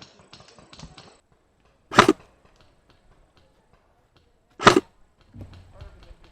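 Airsoft electric guns firing: a fast rattle of shots in the first second, then two loud, short cracks about two and a half seconds apart.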